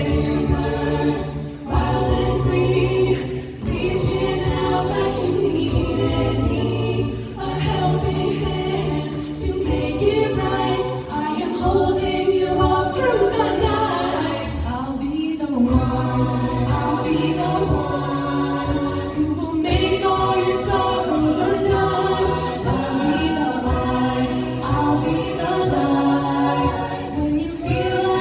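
High school a cappella group singing in close harmony, the upper voices moving over a sustained low bass line, with no instruments.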